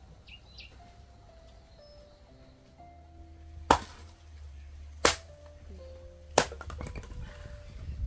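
Three sharp chopping blows of a hoe blade striking wood, about a second and a half apart, over quiet background music.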